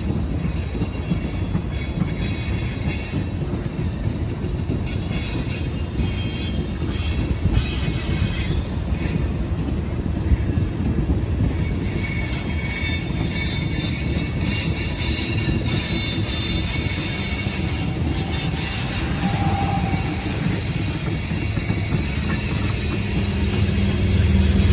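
Loaded coal hopper cars of a freight train rolling past, a steady rumble of steel wheels on rail, with thin high-pitched wheel squeal coming and going.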